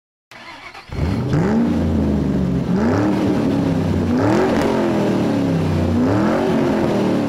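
Car engine revving sound effect: the engine note climbs and drops about four times, coming in about a second in.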